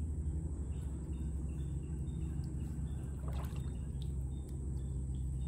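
Water splashing and dripping as a fishing net is hauled out of the water, with a brief splash about three seconds in, over a steady low hum.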